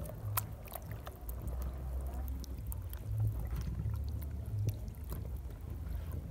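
Wet squelching and sloshing as a hand kneads a whole raw chicken in coconut milk in a plastic basin, with many small wet clicks. A steady low rumble runs underneath.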